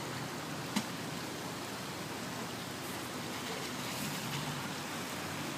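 Steady rush of river water, with a Range Rover's engine running low underneath as it edges toward the ford. A single sharp click comes a little under a second in.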